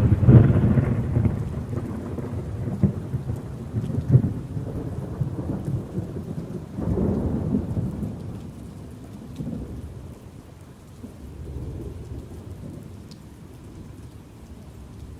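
A thunderclap right at the start that rolls on as low rumbling, swelling again about four and seven seconds in and dying away over steady rain.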